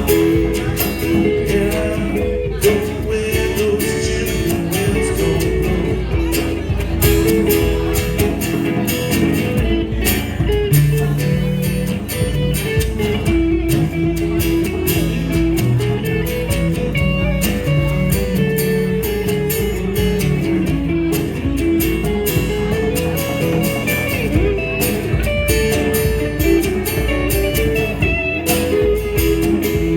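Live band playing a rock song, with guitars to the fore over bass and drums.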